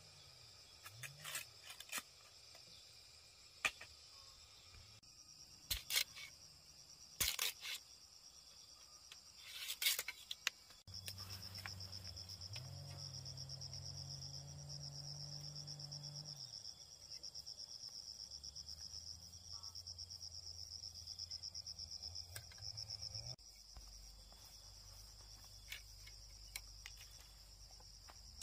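Machete blade striking and splitting bamboo: a series of sharp knocks in the first ten seconds. Then a steady, rapidly pulsing high chirr of insects with a low hum beneath it, the hum dropping away a few seconds before the end.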